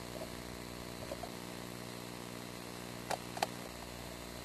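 Quiet, steady hum with two faint clicks a little after three seconds in.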